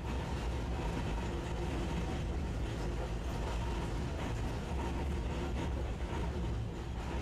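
Tosaden streetcar running, heard from inside the car: a steady low rumble of wheels on rail and traction motor, with a faint steady whine.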